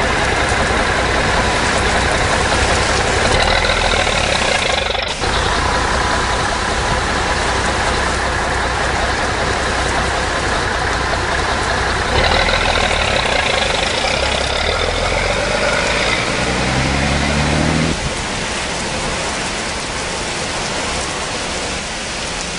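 Steady rain with a trolley bus engine idling. About fifteen seconds in, the engine revs up in stepped rises as the bus pulls away, and a few seconds later the engine is gone, leaving only the rain.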